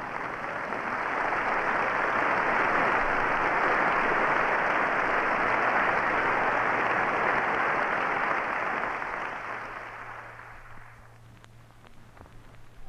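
Audience applauding, dying away about ten seconds in, with a few scattered claps near the end.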